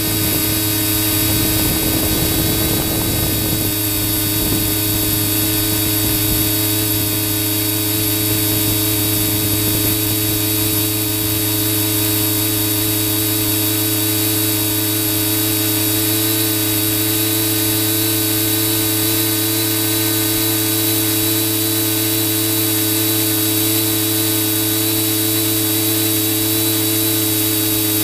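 Motor and propellers of the aircraft carrying the camera, running at a steady pitch throughout a climb. There is some wind buffeting on the microphone during the first few seconds.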